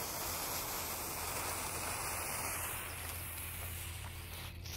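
Fuse of a strobe pot firework burning with a steady hiss as it throws off sparks.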